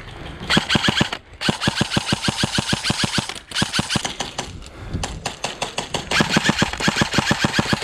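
Airsoft electric gun firing on full auto in several long rapid bursts of sharp clicking shots, about a dozen a second, with short pauses between them.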